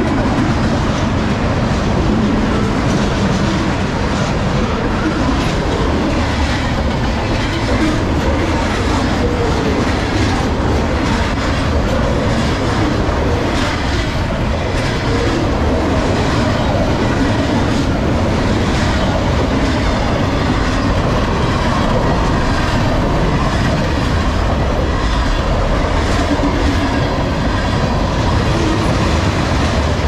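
Freight cars of a long CSX train rolling past at about 49 mph: a steady, loud rumble of steel wheels on rail with a rapid clickety-clack over the rail joints. The cars are loaded open-top garbage cars, followed by tank cars.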